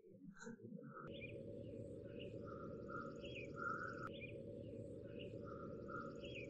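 Outdoor ambience: birds chirping in short repeated phrases over a steady low hiss that comes in about a second in.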